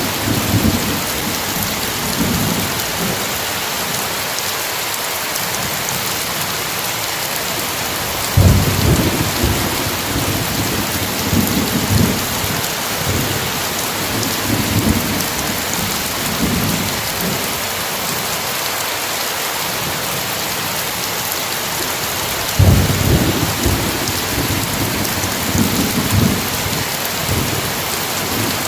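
Steady heavy rain with rolling thunder. One low rumble breaks in about eight seconds in and rolls on for several seconds, and another comes about twenty-two seconds in.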